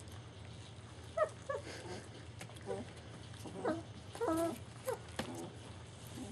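Very young German Shepherd puppies whimpering: a string of about seven short, high squeaks and whines, some falling and some rising in pitch, over a faint steady hum.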